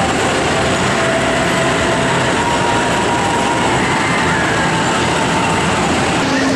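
Steady, loud din of an indoor amusement park: running ride machinery and crowd noise blended into a continuous rumble, with a few faint held tones and no single sound standing out.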